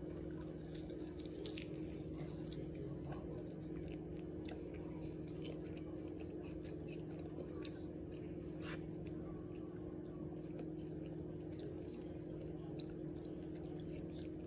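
Close-up chewing and biting of barbecue rib meat and bread, with many small wet mouth clicks. A steady low hum runs underneath.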